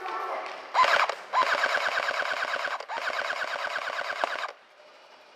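Airsoft electric gun firing full-auto: a short burst about a second in, then two longer bursts of about a second and a half each, at roughly ten shots a second over a steady gearbox whine.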